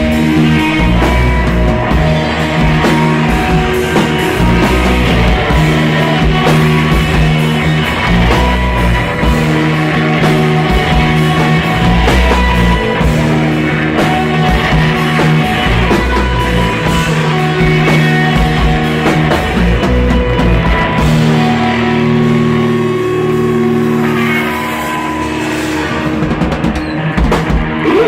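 A rock band playing live, loud: guitars over a drum kit and bass. About three-quarters of the way through the lowest bass notes drop out and the playing thins for a few seconds.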